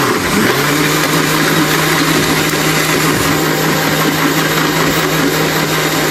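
Electric mixer grinder running steadily, blending bananas, oats, peanuts and milk into a liquid shake; its motor settles into a steady hum about half a second in.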